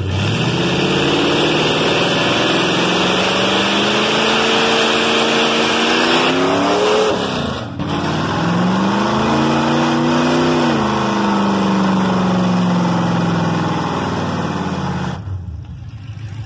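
Chevrolet C10 pickup's swapped-in 6.0-litre LS V8, running on open headers with no exhaust pipes, revving hard in a burnout with the rear tyre spinning. The revs climb for several seconds, dip about seven seconds in, climb and hold again, then fall away near the end.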